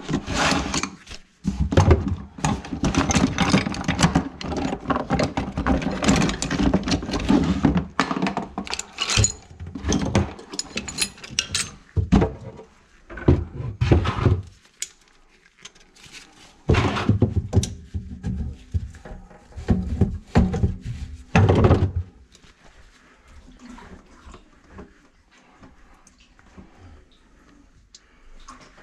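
Irregular clatter and knocks of a plastic bucket and hand tools being handled and set in place inside a sink base cabinet, under the drain trap. Busy over the first half, then a few separate loud knocks, and only small handling sounds near the end.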